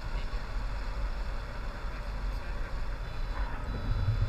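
Wind rushing over the microphone of a camera on a tandem paraglider in flight: a steady low rumble.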